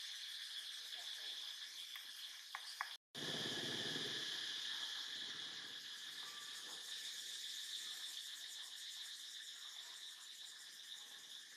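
A steady, high-pitched insect chorus drones throughout. About three seconds in, the sound cuts out for a moment and returns with a low rumble underneath for a second or two.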